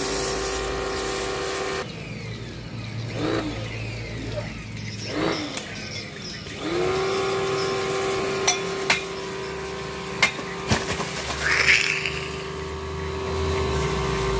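A motor runs with a steady hum, cuts out about two seconds in, and spins back up to the same steady pitch a little past the middle. Several sharp metallic knocks and a short hiss follow near the end.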